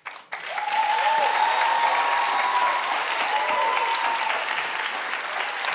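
Studio audience applauding steadily, starting about half a second in, with a few voices cheering over the clapping.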